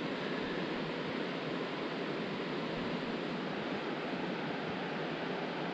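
Steady rushing of river water running over the shallows.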